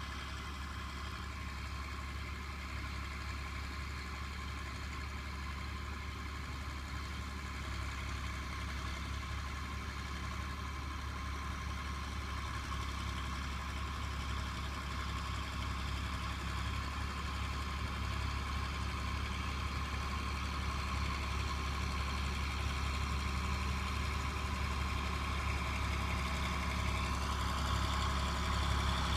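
John Deere 4240 tractor's six-cylinder turbo diesel engine running steadily under the load of a five-furrow reversible plough, growing gradually louder.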